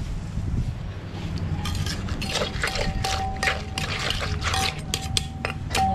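Metal spoon stirring, scraping and clinking against a clay mortar through wet papaya-salad dressing and ingredients. The rapid clinks begin about two seconds in, with a thin steady tone alongside.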